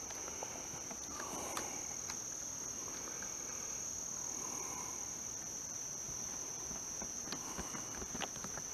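Night-time insect chorus, crickets trilling in one steady high-pitched drone. A few faint clicks and rustles come near the end.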